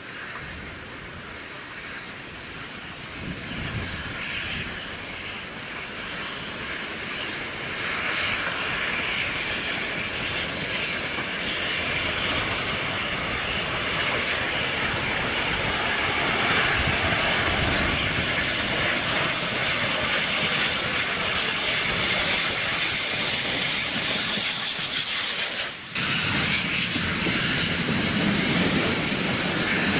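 Steam locomotive working a freight train, growing steadily louder as it approaches, with hissing steam. After a brief break near the end, the train's wagons rumble close by.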